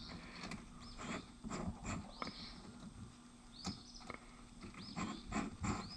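Old hand drill being handled while a bit is fitted and its chuck worked open and shut: scattered light metallic clicks and knocks, with short high chirps every second or so.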